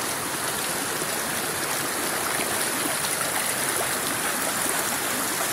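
Spring water flowing out of a hillside at a river's headwaters: a steady, even rush of running water.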